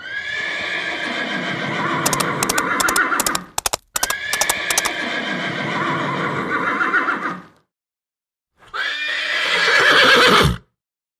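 Horse neighing: three whinnies, the last one shorter, with a quick run of sharp clicks during the first two.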